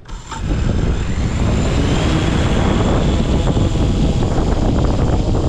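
DJI Mavic Air 2 quadcopter's motors and propellers spinning up from rest within the first half second, then running steadily on the ground as a heavy low rumble with a faint thin high whine on top.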